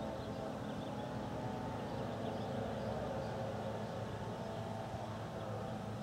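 Faint, distant voice message from an electronic outdoor warning siren's loudspeaker, a Whelen WPS-2803, broadcasting an emergency warning announcement at the end of a siren test.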